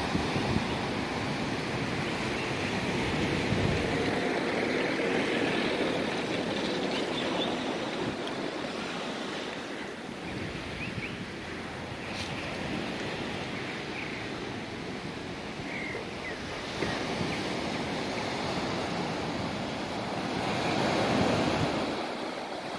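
Small waves breaking and washing up a sandy beach in a continuous surf wash that swells louder a couple of times, with wind buffeting the microphone.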